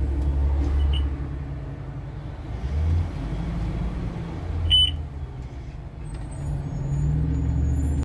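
Bus engine running with a steady low rumble that swells and eases, heard in the cab. A short, high chirp sounds once about five seconds in, with a fainter one about a second in.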